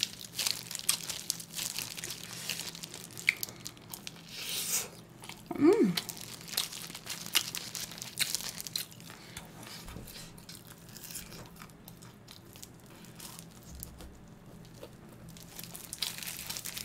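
Eating sounds at close range: biting and chewing on pork ribs, with small crunches, wet clicks and the crinkle of disposable plastic gloves. A short hum from the eater about six seconds in.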